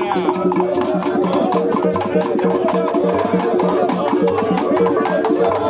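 Rhythmic percussion music of drums and wood-block clicks with repeated pitched notes, playing for the Iga masquerade's dance, with voices over it.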